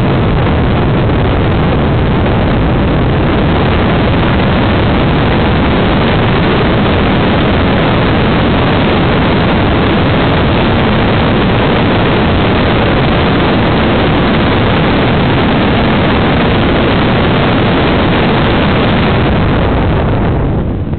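Loud, steady rush of motor and wind noise picked up by the aircraft-mounted camera in flight. The rushing noise swamps the microphone, and the upper part of the noise drops away near the end.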